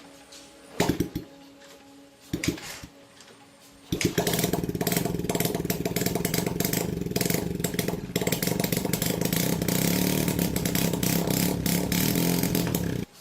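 Small motorcycle engine: two brief start attempts, then it catches about four seconds in and runs fast and steadily before cutting off suddenly near the end.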